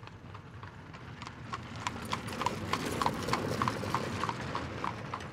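Horse hooves clip-clopping at a steady pace, about three clops a second, over a low rumble. The clops grow louder to a peak about three seconds in, then ease off slightly.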